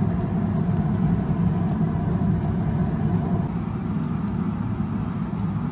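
Glutinous rice dough patties frying in shallow oil in a pan: a steady sizzle with small scattered crackles, over a steady low rumble.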